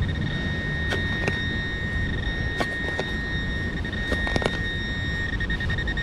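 A steady high-pitched electronic tone from metal-detecting gear sounds throughout and breaks into a rapid warble near the end, as the target, a bottle cap, is closed in on. Several sharp clicks of digging come over a low rumble.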